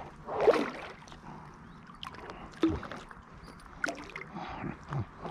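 A small perch splashing at the water surface as it is reeled in on a fishing line, a few short irregular splashes.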